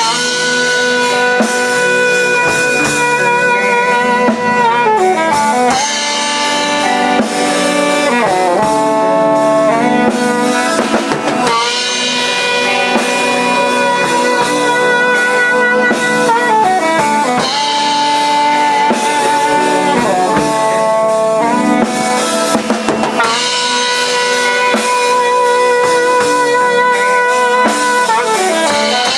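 Live instrumental band of saxophone, electric guitar, bass guitar and drum kit playing together, with long held notes that slide down in pitch several times.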